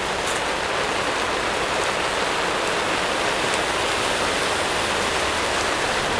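Heavy rain falling steadily, a dense even hiss, heard from under the roof of a tent stall.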